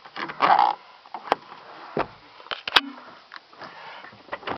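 A short breath-like rush of noise close to the microphone, then a few sharp clicks and knocks of car interior trim being handled.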